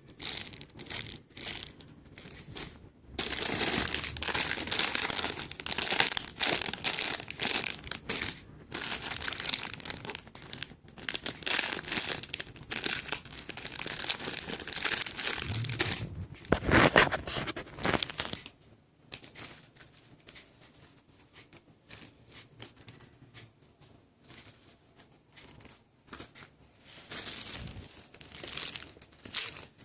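Crinkling and rustling as squishy foam toys are handled and squeezed, dense for about the first half, then sparser and quieter, with a louder swish just past the middle.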